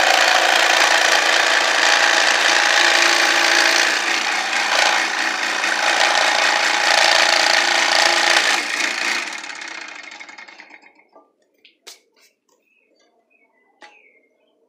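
Electric bench scroll saw cutting plywood, running steadily, then switched off about nine seconds in and winding down over a couple of seconds. A few light knocks follow as the cut pieces are handled.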